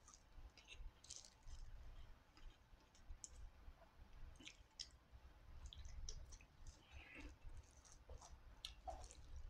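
Faint, scattered clicks and smacks of close-miked eating by hand: a person chewing food and picking up rice with his fingers.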